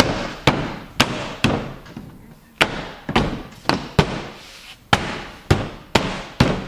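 Plastic liftgate trim panel being knocked into place, about a dozen sharp snaps and knocks as its clips and tabs seat into the hatch.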